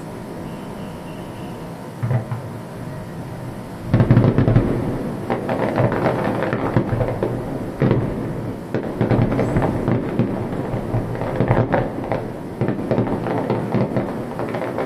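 Aerial fireworks going off: a single thump about two seconds in, then a loud bang about four seconds in followed by a dense run of bursts and crackling.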